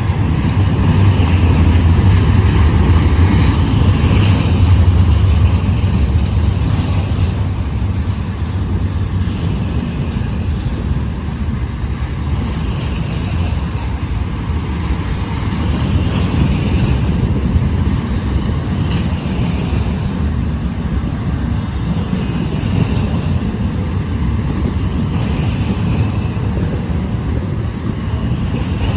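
Freight train rolling slowly past on the rails, a steady rumble of cars and wheels, loudest in the first several seconds.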